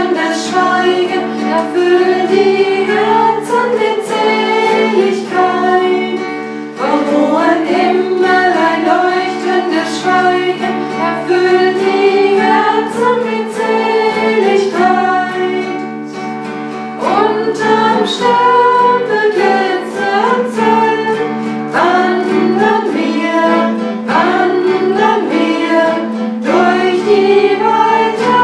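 Women singing a song together in phrases, accompanied by a classical (nylon-string) guitar.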